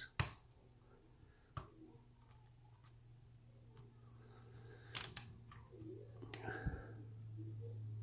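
Small sharp clicks of a hook pick and tension wrench working the pins of a spool-pinned challenge lock, the clicks the picker feels and hears as pins set while he turns anti-clockwise. The clicks come singly and in a quick cluster of about three around five seconds in, over a low steady hum.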